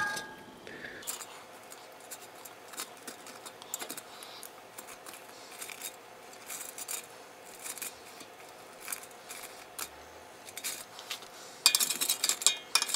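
Breaded bites being turned over in a nonstick air fryer basket: scattered light taps and clicks over a faint steady hum, then louder clicking and scraping of metal tongs against the basket near the end.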